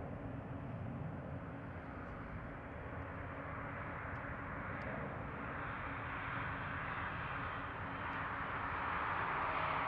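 Distant jet engine noise from a Boeing 737-500's CFM56-3 turbofans as the airliner climbs away after takeoff: a steady low rumble under a hiss that grows louder over the last few seconds.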